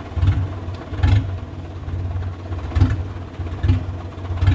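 Vehicle engine running, with a low pulse swelling roughly once a second.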